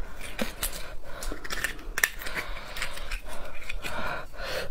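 Thin metal utensil scraping and prying marrow out of a cut beef bone: a close, irregular run of small scrapes and clicks.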